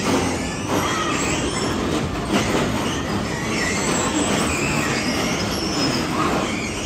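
Steady noisy din of bumper cars running on a ride floor, with a sharp knock about two and a half seconds in.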